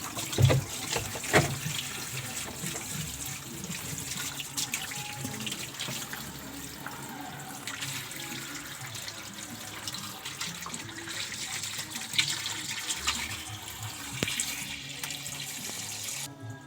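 Water rushing and splashing into a washing machine's tub, with a couple of knocks in the first second or two. The rushing cuts off shortly before the end.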